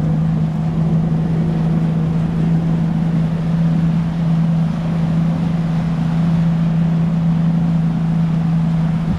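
Bass boat's motor running with a steady hum, over a constant rush of noise.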